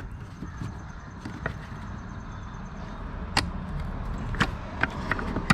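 Scattered clicks and knocks of hand work on the engine bay parts while prying at a stuck brake master cylinder, two sharper knocks about three and four seconds in, over a steady low rumble.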